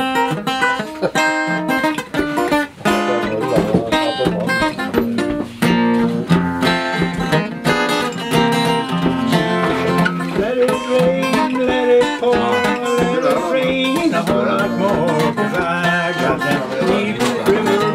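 Steel-string acoustic guitar being played, a busy run of picked and strummed notes. About ten seconds in, a held, wavering higher tone joins the guitar.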